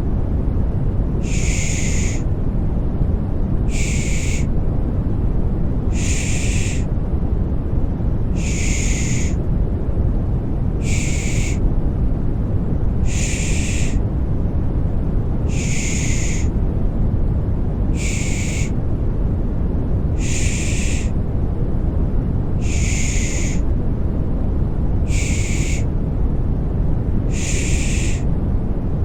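Rhythmic 'shh' shushing, the Turkish 'pış pış' used to soothe a baby, repeating about every two and a half seconds with each shush lasting about a second. It plays over a steady, deep white-noise rush.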